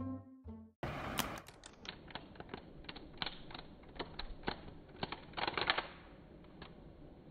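A deck of playing cards being shuffled and handled on a tiled floor: a run of sharp, irregular card clicks and flicks, with a quick dense cluster about five and a half seconds in.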